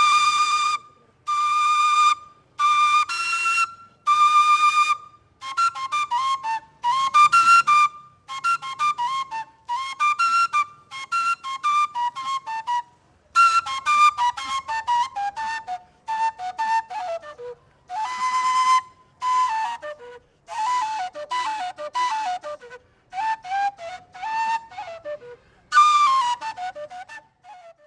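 Plastic Colombian gaita (duct flute) played solo: a single melody line in short phrases of quick, ornamented notes, separated by brief pauses.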